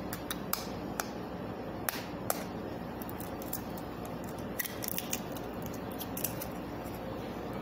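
An eggshell being tapped with a metal spoon and cracked open by hand: a handful of sharp separate taps at first, then a quicker run of small cracks and clicks as the shell is broken off.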